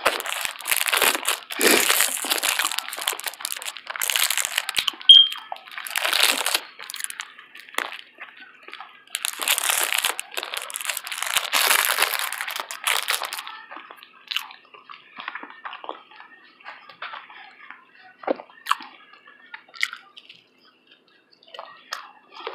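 Close-miked eating of a small honey bun: loud crackling and crunching for about the first thirteen seconds, then quieter, scattered clicking mouth sounds of chewing.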